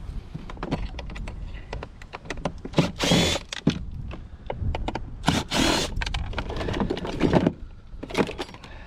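Junk being pulled about and sorted in a pile of household scrap: many short clatters and knocks, with two longer scraping sounds, one about three seconds in and one about five and a half seconds in. Wind rumbles on the microphone throughout.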